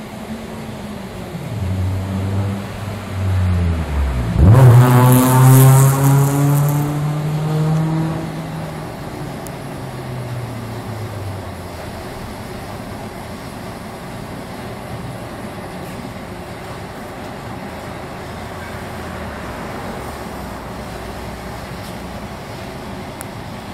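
Betts vertical turret lathe's drive starting and its 108-inch table spinning up: a low hum that rises in pitch as the table gathers speed, with a loud hiss about five seconds in. The sound then settles to a steady lower running hum.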